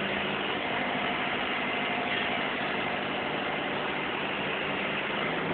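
Forklift engine running steadily while it drives the hydraulic paper roll clamp attachment, whose arms are opening.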